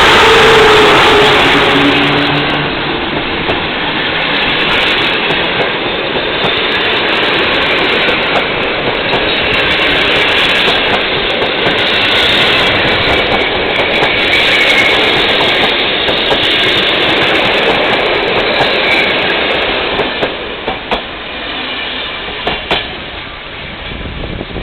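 Passenger train carriages rolling along the platform, a steady loud rush of wheel and rail noise. The noise eases off near the end, where a few sharp clicks stand out.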